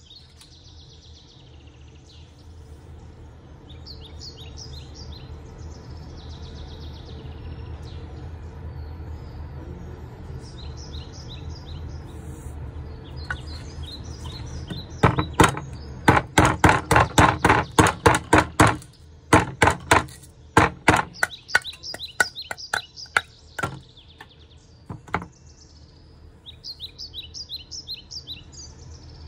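Hand-forged 5160 spring-steel chef knife chopping into a block of wood: a rapid run of sharp strikes at about four a second in the middle, then a few scattered strikes. Birds chirp in the background.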